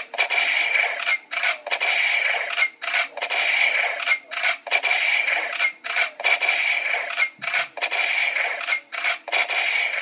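Toy gun's electronic sound effect from its small speaker: a noisy rattling sound with a steady high tone in it, repeated in bursts of about half a second with short breaks between, about two a second.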